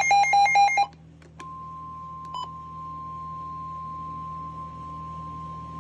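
Emergency Alert System warning audio. A burst of fast-alternating electronic data tones cuts off just under a second in. After a click, the steady single-pitch NOAA Weather Radio 1050 Hz warning alarm tone starts at about a second and a half and holds, over a low hum.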